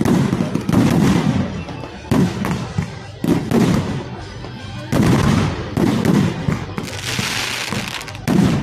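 Fireworks display: a run of aerial bursts, one every second or two, each a sudden bang that dies away, with a longer crackling hiss a little before the end.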